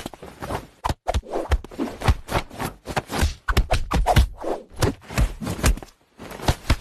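A rapid, irregular flurry of soft pats, slaps and thumps as a hand and a cat's paws bat at each other, mixed with handling noise on the phone.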